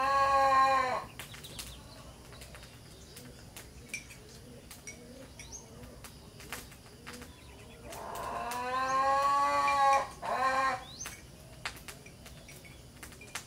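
A cow mooing: one long call trailing off about a second in, then another long call about eight seconds in, followed closely by a short one. Faint bird chirps and small clicks are heard between the calls.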